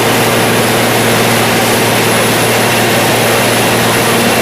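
Caterpillar PM102 cold planer running steadily: a constant engine hum under a loud, even broad noise that does not change.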